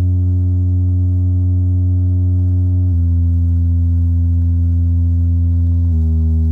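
Yamaha YST-SW030 8-inch subwoofer playing a steady low test tone with overtones. The tone steps to a new pitch about every three seconds.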